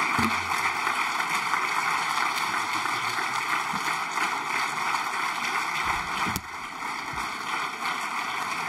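Audience applauding: steady, sustained clapping.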